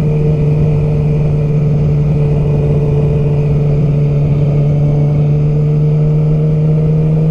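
Yamaha R6 sport bike's inline-four engine running at a steady speed while cruising, holding one even tone with no revving or gear changes.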